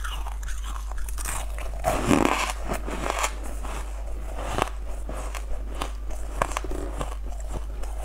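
Close-miked biting and chewing of a hard, frosted blue treat: a loud crunch about two seconds in, then a run of small crisp crackles as it is chewed.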